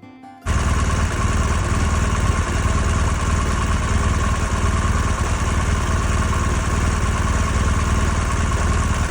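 Vehicle engine running steadily with a low drone and a steady whine over it. It comes in suddenly about half a second in, as the music cuts away.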